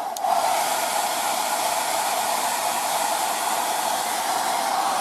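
Travel hairdryer running steadily and working normally, blowing warm air with good airflow: an even rush of air with a strong hum from its fan motor.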